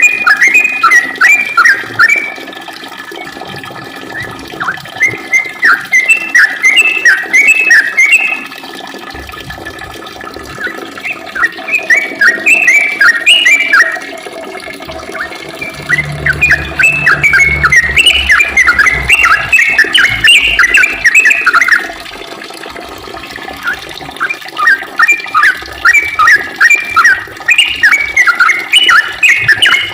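Yellow-vented bulbul (trucukan) singing long rapid runs of short chirping notes, in phrases of a few seconds broken by brief pauses.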